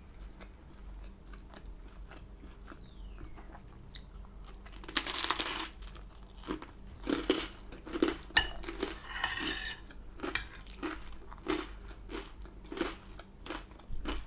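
Close-miked chewing of crisp, oven-hardened naan bread: a loud crunching bite about five seconds in, then steady crunchy chews, about three every two seconds.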